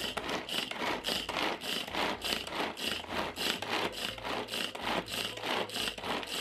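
Steel kitchen knife slicing and dicing a block of ham on a wooden cutting board, each stroke a scraping rasp of the blade through the meat and onto the wood, about three strokes a second.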